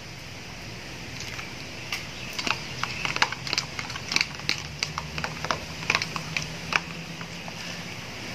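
Metal spoon clicking and tapping against a thin plastic container as an egg is beaten, in quick irregular strokes starting about two seconds in.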